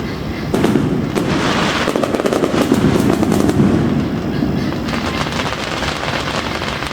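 Aerial fireworks display: rapid crackling pops over a low rumble of bursts, densest in the first few seconds and thinning out after about four seconds.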